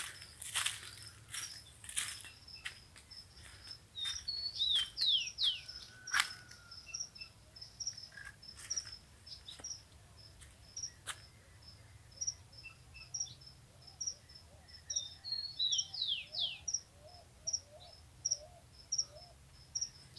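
Rural outdoor ambience: short high chirps repeating every second or so, and twice a bird giving a quick run of falling whistled notes, about five seconds in and again near sixteen seconds. Handling knocks and clicks sound through the first six seconds.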